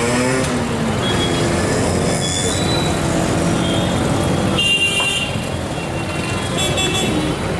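Busy street traffic: vehicle engines running with several short horn toots, the clearest about five seconds in.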